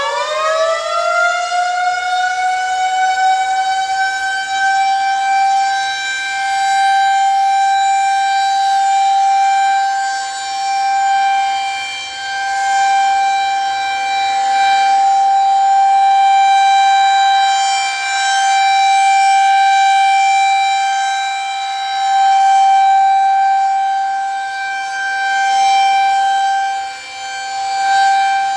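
Federal Signal 2001-130 rotating outdoor warning siren sounding a steady-tone noon blast. Its pitch finishes winding up in the first few seconds, then holds steady, swelling and fading every few seconds as the horn turns.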